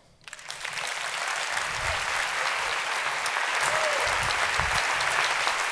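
Audience applauding: the clapping builds up over about the first second, then holds steady.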